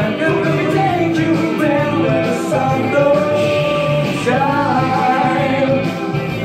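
A man singing into a handheld microphone over a rock backing track with guitar.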